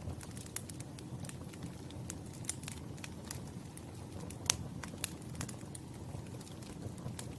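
Campfire burning with a steady low rumble of flames and frequent irregular sharp crackles and pops of burning wood, one louder pop about four and a half seconds in.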